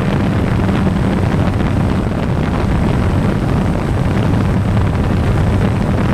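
DJI Phantom quadcopter's motors and propellers running steadily, heard up close from the GoPro mounted on the drone, mixed with wind on the microphone.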